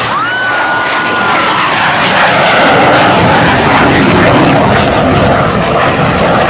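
Saab JAS 39 Gripen's single Volvo RM12 turbofan running in afterburner during a pull-up, a loud jet roar that builds over the first two seconds.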